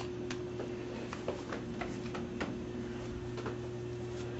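Small irregular pops and ticks, a few a second, from hydrogen bubbles of a homemade water-electrolysis cell igniting as they reach the small flame on the hose end, over a steady low hum.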